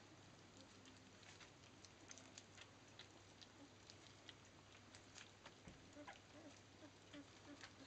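Labrador puppies lapping and smacking at soft weaning mush in a shallow metal dish at their first solid feed: faint, irregular wet clicks, several a second, from many mouths at once.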